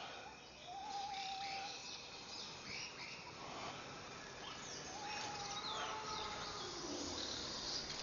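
Jungle ambience: assorted birds calling with short chirps and whistles, two of them held whistles about a second in and about five seconds in, over a steady high hiss.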